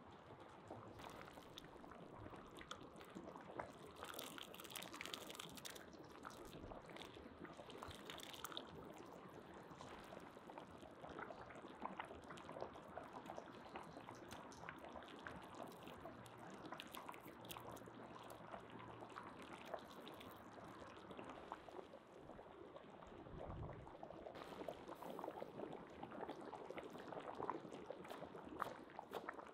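A large cauldron of borscht boiling hard: a steady, dense bubbling and popping of thick liquid, with a ladle stirring through it.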